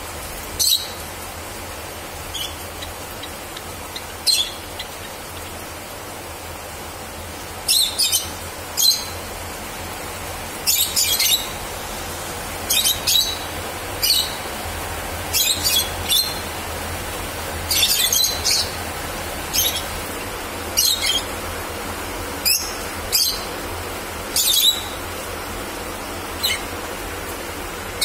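Java sparrows calling: short, sharp chip notes, singly or in quick runs of two or three, every second or two, over a steady low hiss.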